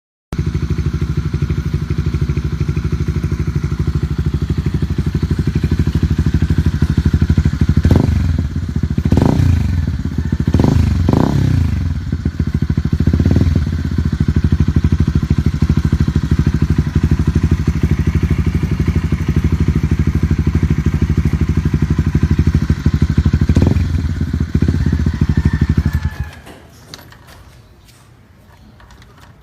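Suzuki Raider R150's single-cylinder four-stroke engine idling steadily, with a quick series of about five throttle blips and one more later on. The sound starts suddenly and cuts off near the end.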